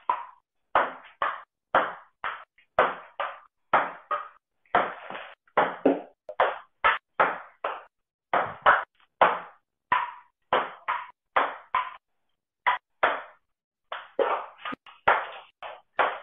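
Ping-pong ball bouncing on the table and being hit back. It makes a steady run of sharp knocks, about two a second, with dead silence between them.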